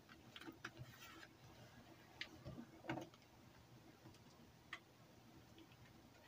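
Faint crinkles and soft taps of folded newspaper being creased and pressed flat by hand on a wooden table. These come as a few short ticks scattered through near silence, the clearest about two, three and nearly five seconds in.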